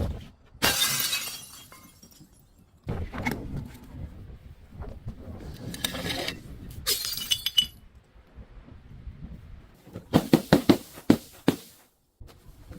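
Glass bottle breaking: a loud shatter about a second in, then more crunching and crackling of glass, and near the end a quick run of about eight sharp cracks.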